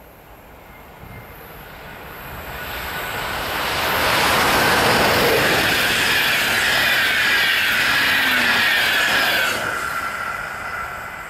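A passenger train hauled by an EU44 electric locomotive passes at speed. The rush of its wheels on the rails swells over the first few seconds, stays loud with high sliding tones from the wheels and rails, then fades quickly near the end.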